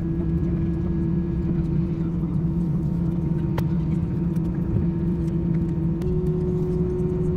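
Steady cabin drone of a taxiing jet airliner: engines at idle and the cabin air system, heard inside the cabin. Two low hum tones hold steady, one stepping slightly higher about six seconds in.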